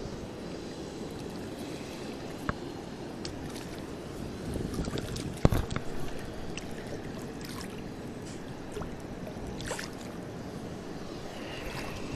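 Steady rush of flowing river water, with splashing from a hybrid striped bass (wiper) held by the lip and let back into the shallows. The splashing is heaviest about four and a half to six and a half seconds in, with one sharp slap of water about five and a half seconds in.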